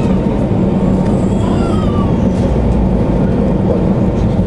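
Jet airliner's engines and runway rumble heard from inside the cabin during the takeoff roll: loud, steady noise with a low steady hum underneath. A short high voice-like call sounds about one and a half seconds in.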